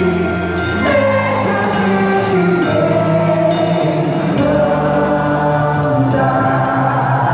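Music with a group of voices singing over bass notes and sharp percussion hits.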